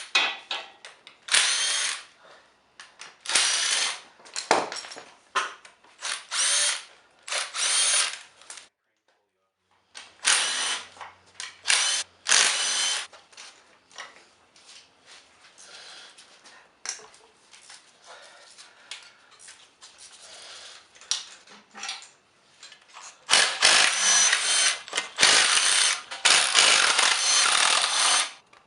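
A hand-held power tool, such as a drill or impact driver, runs in repeated short bursts with a high whine, as bolts are taken out during an engine teardown. Near the end come longer runs.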